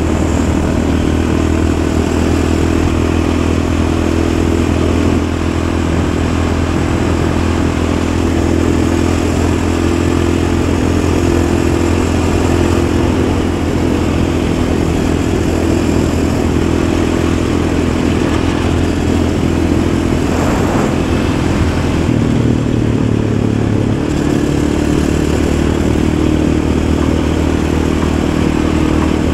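Yamaha Raptor 700 ATV's single-cylinder four-stroke engine running steadily under way at a constant pace, its pitch shifting about three-quarters of the way through.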